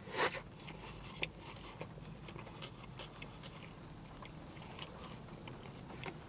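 Close-up chewing of a mouthful of burger, with a loud crunch just after the start, a sharp click about a second in and small wet mouth clicks after that.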